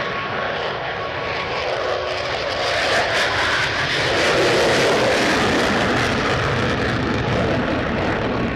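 Aircraft engine roar swelling to a peak about halfway through, then easing slightly, as an airplane flies past.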